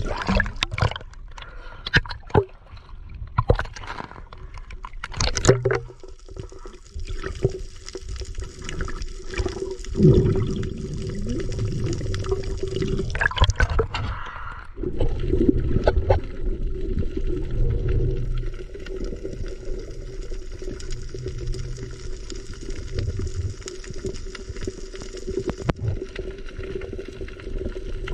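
Water gurgling and sloshing, with a run of sharp clicks and knocks over the first six seconds and another cluster around the middle, and a steady low hum under the rest.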